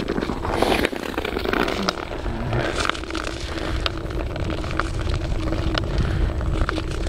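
Ice skate blades scraping and clicking on natural ice as skaters stroke past, the sharp clicks coming irregularly over a low wind rumble.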